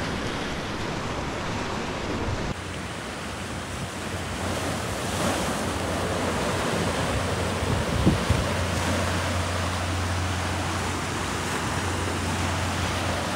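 Ocean surf washing and breaking against rocky granite shoreline, a steady rushing wash of waves. Wind buffets the microphone with a low rumble in the second half.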